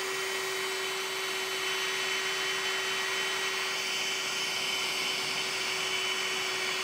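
Electric heat gun running steadily, its fan motor whining at one even pitch under a rush of hot air, as it shrinks heat-shrink sleeving onto a pair of wires.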